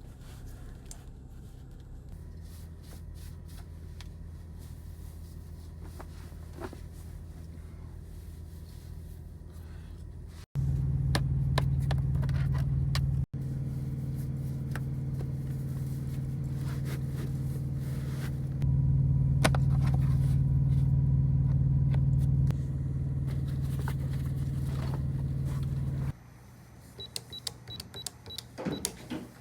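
Semi-truck engine running steadily, a low hum that changes in level abruptly several times. Near the end the hum drops away, leaving a few clicks and four short high beeps in quick succession.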